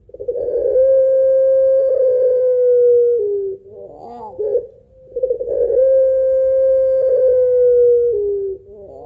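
Ringneck dove of the long-voiced 'pelung' type calling twice. Each time a short rippling, laugh-like chuckle leads into a long held coo that sags a little and drops lower at its end.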